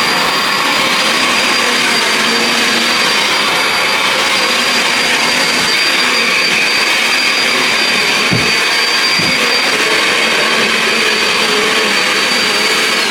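Vacuum cleaner running steadily at full power, a loud rushing noise with a high motor whine on top, over carpet. Right at the end it is switched off and the whine begins to drop as the motor winds down.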